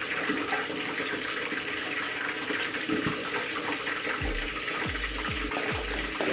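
Steady hiss of cooking on the gas stove. About four seconds in, electronic background music with a deep bass beat comes in over it.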